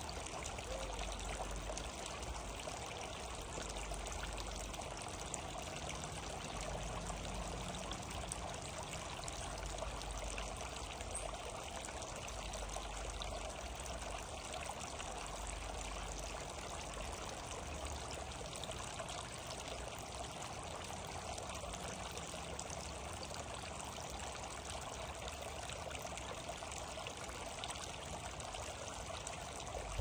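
Backyard water fountain running, water trickling and splashing steadily.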